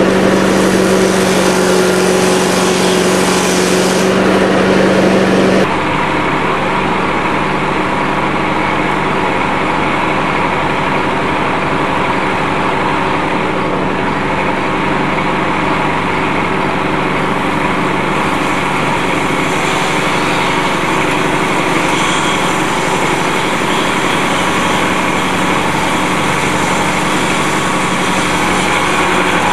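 Small gas lawnmower engine running steadily as a homemade mulcher, its blades chopping dried catnip stalks being fed down the chute. About six seconds in it becomes a little quieter.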